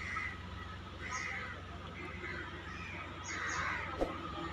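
Crows cawing, several raspy calls about a second apart, over a steady low hum.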